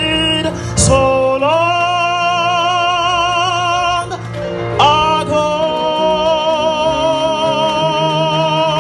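Singing at the close of a Christmas gospel song: a voice holds two long notes with vibrato over steady accompaniment, the second beginning about five seconds in.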